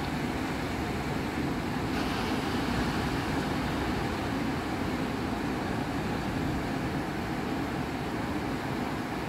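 Ocean surf breaking and washing up the beach: a steady rushing noise, with a little more hiss from about two seconds in.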